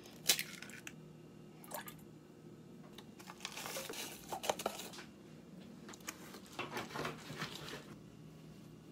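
Dry corn muffin mix pouring out of its box into a stainless steel mixing bowl, a soft rustling hiss about three to five seconds in. Around it are light knocks and more rustling as the box and bowl are handled.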